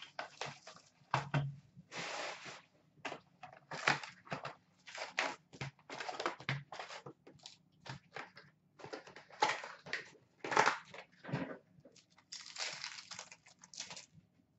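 Upper Deck SP Authentic hockey card box and its card packs being torn open by hand: a run of irregular rustling, crinkling and tearing of cardboard and pack wrappers, with short pauses between rips.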